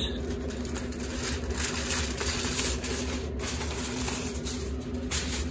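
Aluminium foil crinkling as it is peeled back off a tray, over the steady hum of a Rec Tec pellet grill's fan running at temperature.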